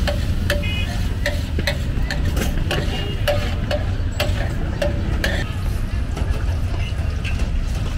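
Metal spatula scraping and knocking on a large steel tawa while stir-frying liver, a ringing stroke about two or three times a second that thins out after about five seconds, over a low steady rumble of street traffic.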